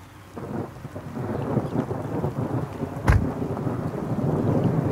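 Thunderstorm sound outdoors: a rushing, crackling noise that swells over the first second or so, with one sharp low thud about three seconds in.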